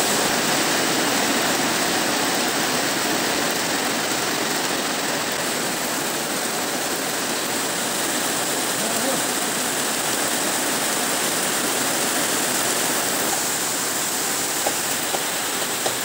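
Steady rain falling, a constant even hiss, with a few faint knocks near the end.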